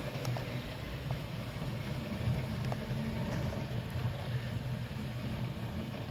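A train running: a steady low rumble with a few faint clicks.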